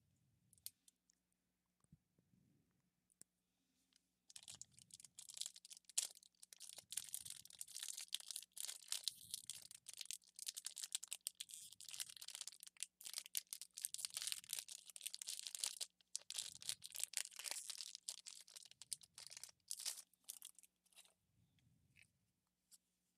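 Foil wrapper of a Pokémon TCG Vivid Voltage booster pack crinkling and tearing as it is opened. It is a dense crackle of small clicks that starts about four seconds in and stops near the end.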